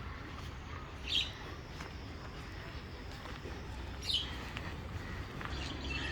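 Two short, high bird chirps, about a second in and about four seconds in, over a steady low rumble.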